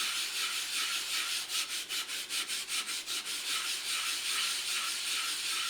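A 6000-grit whetstone being flattened: quick, even back-and-forth scrubbing strokes that make a steady gritty rasp.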